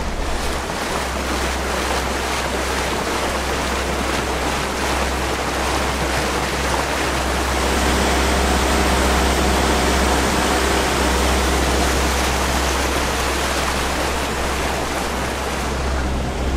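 Motorboat cruising on a lake: a loud, steady rush of water against the hull over a low engine drone, growing a little louder about halfway through.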